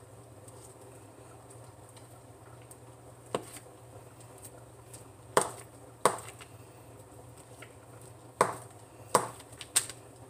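Kitchen knife cutting a block of processed cheese into cubes, each stroke ending in a sharp knock on the board. There are six knocks at uneven intervals.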